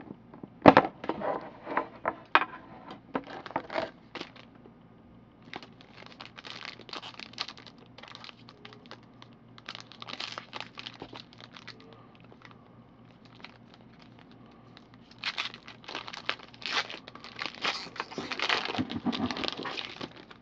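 Tough plastic packaging on a trading-card box being torn and crinkled open by hand: bursts of sharp crackling, busiest in the first few seconds and again near the end.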